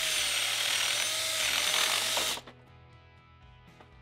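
Power drill running under load with a 3/8-inch bit, enlarging the hole in a wire's eyelet terminal held in vise grips; the motor's whine wavers in pitch as the bit is worked around, then stops about two seconds in.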